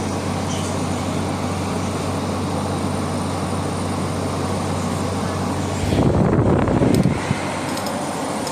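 Haier JA-SP25L spot air conditioner running, a steady fan whoosh with a low hum under it. About six seconds in the hum stops and a louder low rumble lasts about a second.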